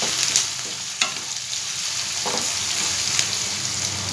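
Chopped onions sizzling in hot oil in a kadhai, stirred with a wooden spatula that scrapes and knocks against the pan a few times.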